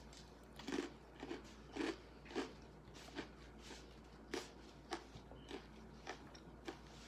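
A person chewing crunchy food close to the microphone: a run of short, sharp crunches, about one or two a second, getting lighter and more spread out towards the end.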